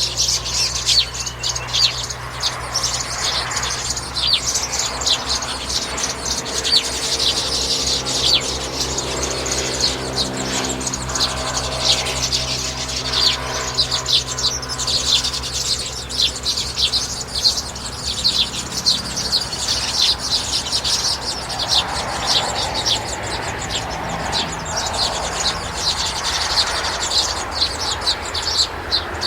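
A flock of small birds chirping continuously, many short high calls overlapping.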